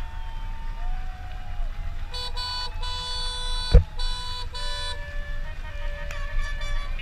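Boat horns sounding: a run of four short blasts starting about two seconds in, then other horns holding longer, steady notes through the last seconds, over a low steady rumble. A sharp thump about halfway through is the loudest sound.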